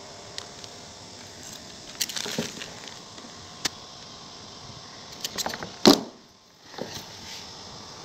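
Light metallic clicks and rattles from hand tools being handled: a steel tape measure and a drill fitted with a hole saw. One sharper knock comes about six seconds in.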